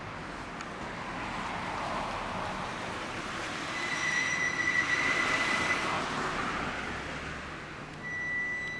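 Ducati 848 superbike moving at low speed, with road and traffic noise. A steady high squeal sounds for about two seconds from about four seconds in, and again briefly near the end.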